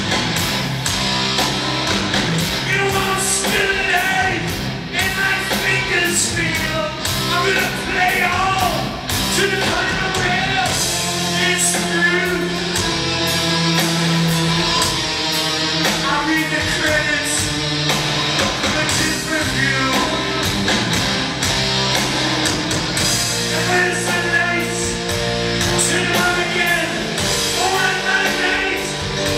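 Live heavy metal band playing: electric guitars, bass, drums and keyboards, with a man singing over them at times.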